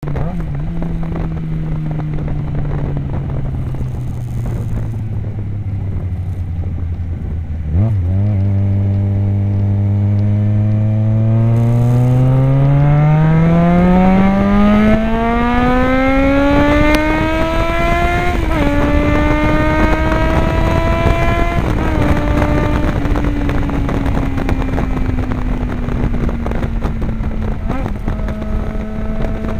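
Yamaha XJ6 inline-four engine through an aftermarket stainless exhaust with a carbon-fibre tip, running loud. Its pitch sinks slowly at first and the sound jumps louder about eight seconds in. It then climbs steadily for about six seconds, as when accelerating under load, drops a step at a shift, and sinks slowly again toward the end.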